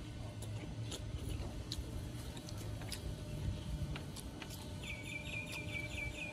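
Quiet eating: chewing, with chopsticks clicking lightly against a metal tray, over a low steady rumble. About five seconds in, a bird calls a quick run of about eight chirps.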